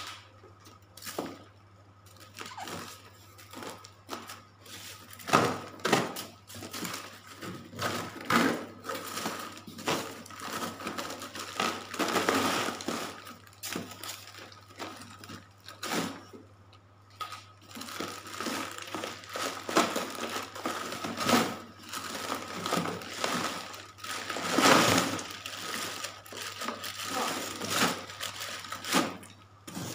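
Plastic bags rustling and crinkling and crushed ice crunching and scraping as frozen fish packs are dug out of an ice-filled styrofoam box, in irregular bursts with occasional knocks.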